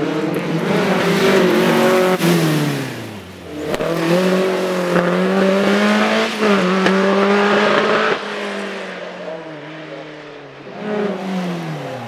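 A 2386cc air-cooled Volkswagen flat-four with twin Weber 48 IDF downdraught carburettors in a racing Beetle, revving hard. Its note falls over the first few seconds, climbs again and holds high for several seconds, then drops away and rises once more near the end.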